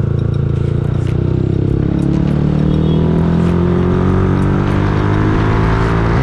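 Yamaha R15S's 155 cc single-cylinder four-stroke engine heard through a loud aftermarket exhaust while riding. It runs steadily for about two seconds, then its revs rise gradually as the bike accelerates.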